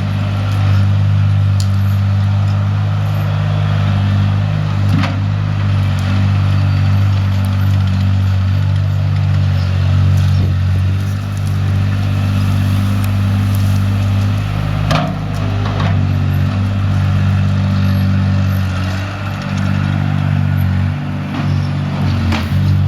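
Engine of a compact earthmoving machine running steadily under work, with a few sharp knocks, the loudest about a third and two-thirds of the way in.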